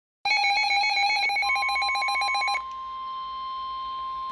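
Emergency Alert System warning tones: a loud, buzzy electronic tone that pulses rapidly, joined about a second and a half in by a steady single tone. The pulsing tone stops about two and a half seconds in and the steady tone carries on alone, the attention signal that comes before a severe thunderstorm warning is read out.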